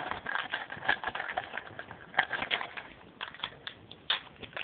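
Crinkling and rustling of a baseball-card pack wrapper and cards being handled close to the microphone: a string of irregular crackles and clicks.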